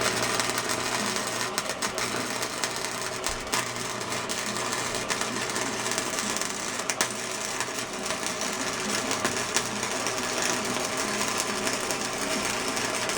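Flux-core wire-feed welder arc crackling and sputtering steadily as a bead is run on the boxing plates, with a low electrical hum underneath.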